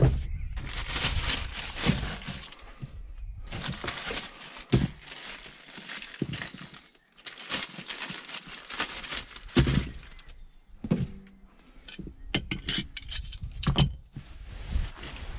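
A plastic bag rustling and crinkling in several long bursts as it is handled, with a quick run of sharp clicks about two-thirds of the way through.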